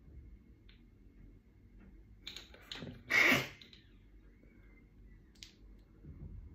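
A short, loud, breathy mouth noise about three seconds in, from a person drinking a shot, over a quiet room with a few faint clicks.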